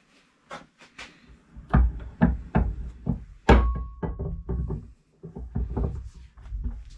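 Knocks and clatter of blue soft jaw covers being fitted onto the cast-iron jaws of a Woden M130 bench vice. There are a dozen or so sharp knocks. The loudest comes about halfway through and leaves a brief metallic ring.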